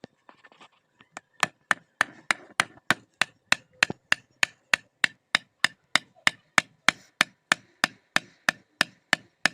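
Blacksmith's hammer striking iron on an anvil in a steady rhythm, about three blows a second, starting about a second in after a few lighter knocks, while the vegetable cutter is forged.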